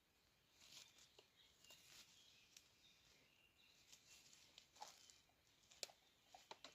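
Near silence: only faint scattered ticks and clicks, with a few faint high chirps.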